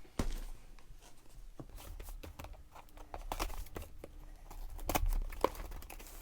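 Handling noise from boxed collectible packaging: scattered clicks, taps and rustling, with a sharp knock right at the start and another about five and a half seconds in.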